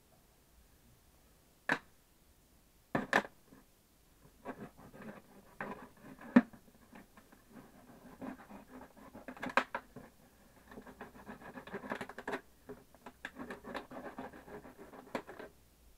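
A large plastic water bottle being cut open to make a bowl: irregular scratching and crinkling of the thin plastic, with a few sharp cracks in the first seven seconds and near-continuous scratching in the second half.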